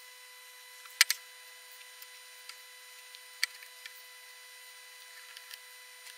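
Hands kneading wet potting soil into a clay-like paste in a ceramic bowl: soft handling noise with a few sharp clicks, the loudest a double click about a second in and another a little past three seconds. A faint steady high hum sits underneath.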